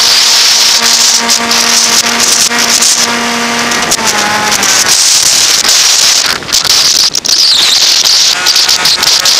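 Wind rushing and buffeting over the microphone of a camera riding on a Bixler 1.1 RC foam plane in flight, over the steady whine of its electric brushless pusher motor and propeller. About four seconds in, the whine glides down and fades as the throttle is cut, leaving the wind crackle; a fainter whine comes back near the end.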